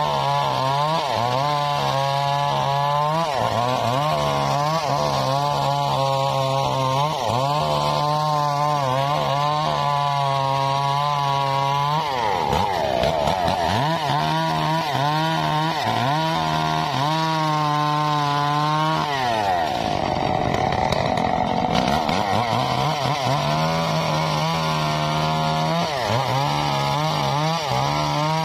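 Stihl two-stroke chainsaw running at full throttle, cutting into a mahogany log, its engine note held steady under load. Twice, about halfway through and again a little later, the engine note drops and climbs back as the throttle is eased and reapplied.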